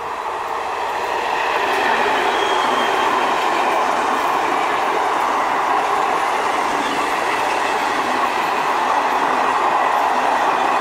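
Passenger train passing close by at speed: the steady rush of wheels and coaches running over the rails. It grows louder over the first two seconds as the train arrives, then holds steady.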